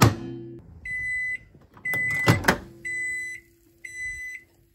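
Microwave oven: a sharp click as the door shuts, then four keypad beeps about a second apart as buttons are pressed. After about two and a half seconds a second loud click comes and the oven starts running with a steady hum, while the beeping goes on.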